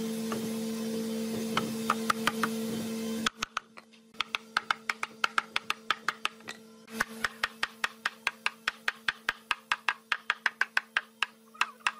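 A heavy hammer striking a red hardwood board in a quick run of sharp blows, about four a second, tapping a mortise-and-tenon or dovetail joint home. For the first three seconds there is a steady electrical hum with a few scattered knocks.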